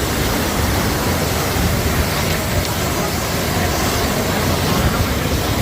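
Meenmutti waterfall: falling water making a steady, loud rushing noise.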